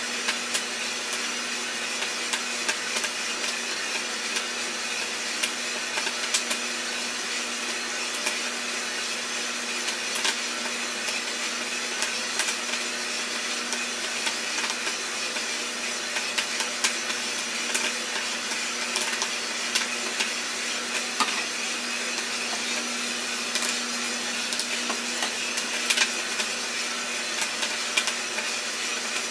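iRoster 600 coffee roaster running with a steady motor and fan hum, with scattered sharp cracks at irregular intervals from the coffee beans cracking during the roast.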